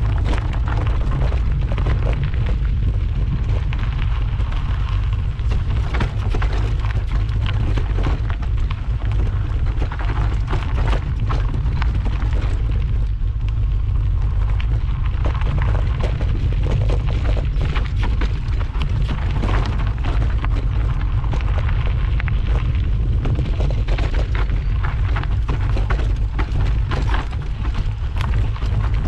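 Mountain bike riding down a rough trail: tyres crunching over dirt and stones and the bike rattling in a constant stream of clicks, over wind buffeting the microphone as a steady low rumble.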